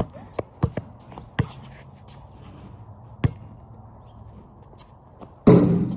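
Basketball bouncing on a concrete driveway: a few uneven bounces in the first second and a half and one more about three seconds in. Near the end comes a louder crash that dies away quickly.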